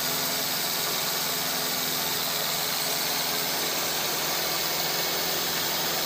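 Sawmill machinery running steadily: an even, constant hiss with a faint low hum underneath and no distinct knocks or cutting strokes.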